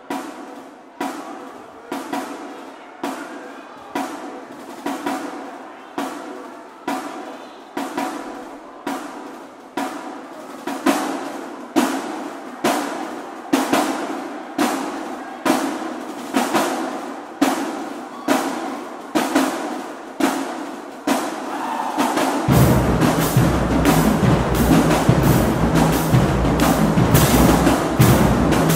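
Marching-band drumline with snare drums, bass drums and cymbals playing a percussion feature. It opens with evenly spaced, ringing single hits about once a second. About 22 seconds in, the full line comes in louder and dense, with deep bass-drum notes underneath.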